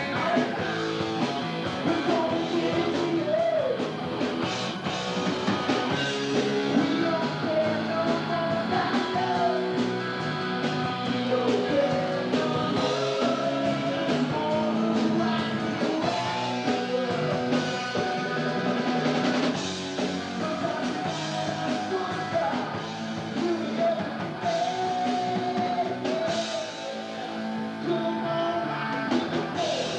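Rock song played by a full band, with a singer over electric guitar and drum kit.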